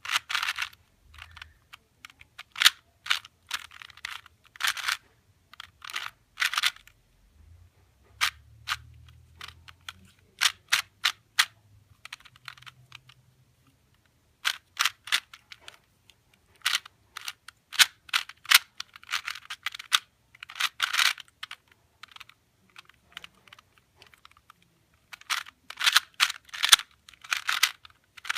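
Plastic 2x2 Rubik's cube being turned by hand: its layers clack and click in quick irregular bursts, with short pauses between runs of turns, as one side is solved.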